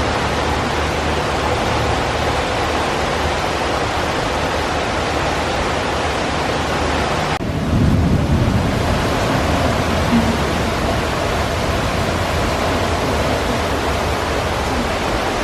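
Steady, loud rushing of heavy tropical-storm rain. About halfway through it breaks off for an instant and comes back at once with more low rumble.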